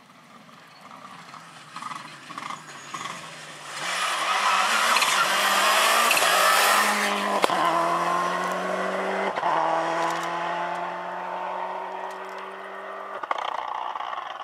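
Subaru Impreza WRC rally car at full throttle on a gravel stage, its turbocharged flat-four engine climbing in pitch and clicking through two upshifts. A loud rush of tyre and gravel noise builds as it approaches, and the sound drops away near the end.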